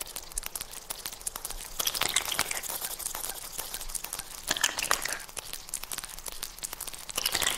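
Electroacoustic dance soundtrack of dense crackling and crumpling noise, with three falling swooshes through it.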